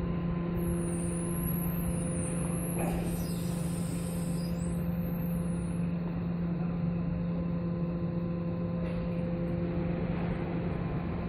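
Automated comb-type parking system's lift running steadily with a constant low hum as it moves a car on its comb carrier. A wavering high-pitched squeal comes in about three seconds in and fades after a few seconds.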